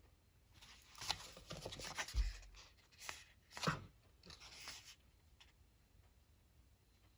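Ink pen scratching across paper in a quick run of short strokes, stopping about five seconds in.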